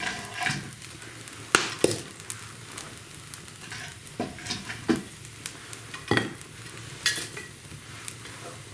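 Walnut firewood burning in an open brick fireplace, hissing steadily with about half a dozen sharp crackling pops. The hiss comes from freshly added, still damp walnut wood drying out in the fire.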